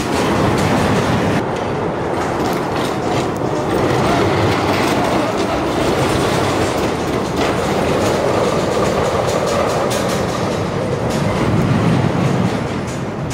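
E&F Miler Industries Hi-Miler steel roller coaster cars running along the track: a steady rumble of wheels on steel rail, with clicks and clacks over the track joints.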